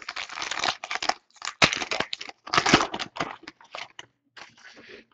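Foil wrapper of a 2014 Donruss baseball card pack being torn open and crinkled by hand: a run of irregular crackly rustles.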